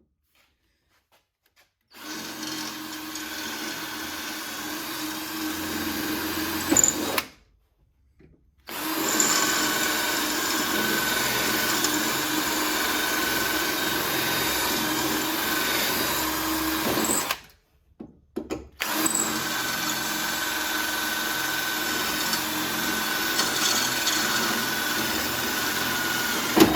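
Power drill drilling out the pop rivets that hold a hood latch, running steadily in three long stretches with short pauses between them.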